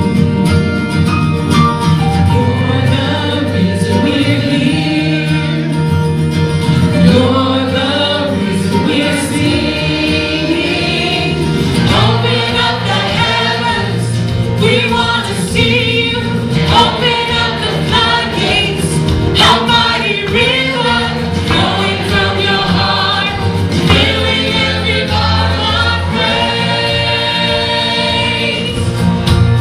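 Worship praise team of mixed male and female voices singing a contemporary worship song together into microphones, over sustained instrumental backing.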